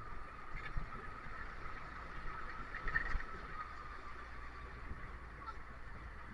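A bus moving along the road: a steady low rumble of engine and road noise with a constant whine above it, and a few light rattles.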